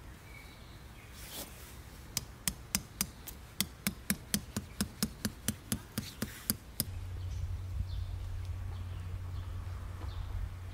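A metal tent peg driven into the ground with a peg hammer: about twenty quick sharp strikes that come faster as they go. A steady low hum follows once the hammering stops.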